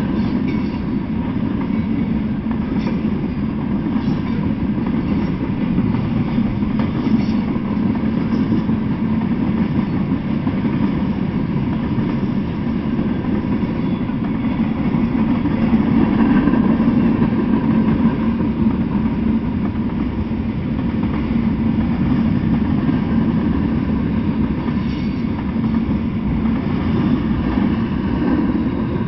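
Freight train passing close by: covered hopper and tank cars rolling past with a steady rumble of steel wheels on the rails, dropping off near the end as the train clears.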